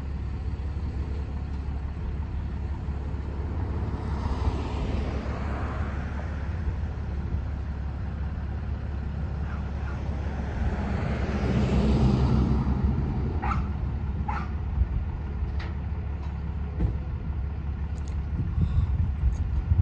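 Street traffic: two vehicles pass by, one about four seconds in and a louder one about eleven seconds in, each swelling and fading over a steady low rumble. A few light ticks follow soon after the second one.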